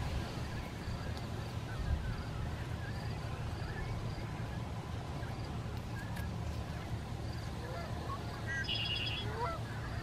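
Marsh ambience: a steady low rumble with faint scattered bird chirps, and near the end a short burst of rapid, high bird notes.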